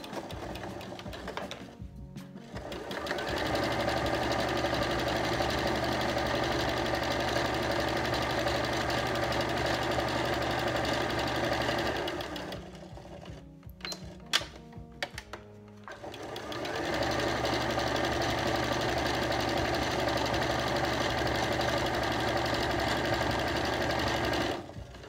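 Computerised domestic sewing machine stitching a seam at a steady speed. It stops about halfway, with a few light clicks during a pause of roughly four seconds, then runs again until just before the end.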